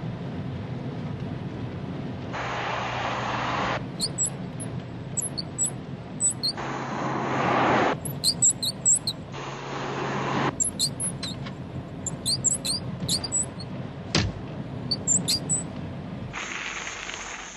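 Clusters of short, very high squeaks, repeating irregularly over the steady low hum of a car, which cuts in and out in blocks. A single sharp click about fourteen seconds in.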